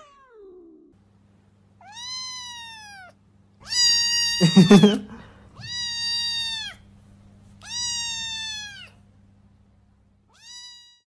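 A cat meowing five times, each call about a second long, rising then falling in pitch, with a shorter last meow near the end. A loud thump overlaps the second meow, and a faint low hum runs underneath.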